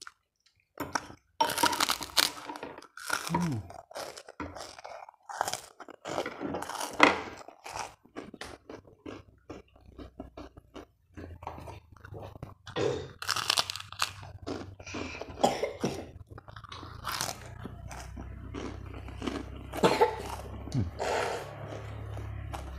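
Close-up crunching and chewing of white fried kerupuk crackers, in irregular crisp bites. A low steady hum comes in about halfway through.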